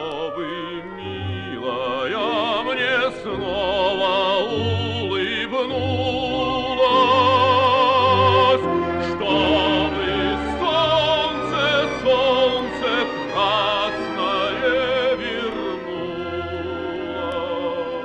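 Male operatic voice singing a Russian song with wide vibrato over instrumental accompaniment. The voice holds a long, loud high note about seven seconds in.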